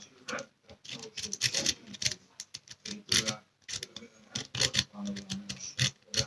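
Rake pick scraped in and out of a cheap euro profile cylinder lock, making irregular metallic clicks and scrapes, several a second, as it runs over the standard pin tumblers.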